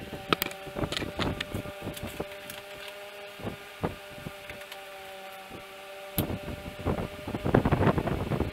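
Scattered knocks and clatter of a plastic bucket and the camera being handled, thickest in the last couple of seconds as the drain bucket is brought up under the engine, over a steady hum.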